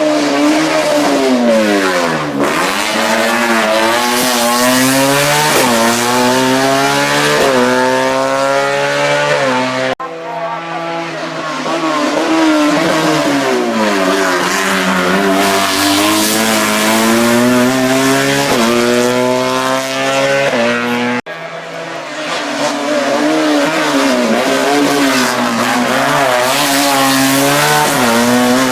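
Hill-climb race car engines accelerating hard through the gears, the pitch climbing and dropping sharply with each upshift, loud and close. The sound breaks off suddenly twice, each time into another car's run.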